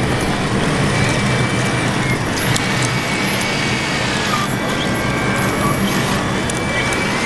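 Large-scale RC model Caterpillar bulldozer driving and pushing dirt with its blade: a steady mechanical drone with a thin high whine that comes and goes, over the dense din of a busy exhibition hall.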